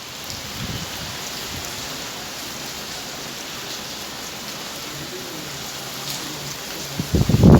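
Heavy rain falling steadily, an even hiss with a few faint drop ticks. Near the end a much louder pitched sound cuts in over it.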